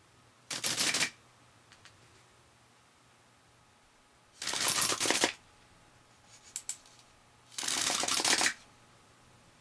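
Oggcraft CONVATT wooden pull-automatic rubber band machine gun firing three quick bursts, each a fast rattle of clicks lasting under a second as the bands release one after another, mixed with the clatter of small wooden targets being knocked over.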